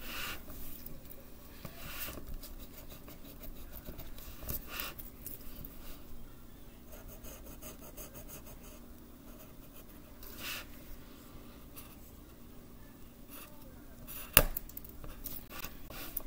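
Pencil scratching on paper in short, separate strokes as lines are drawn, with one sharp tap near the end.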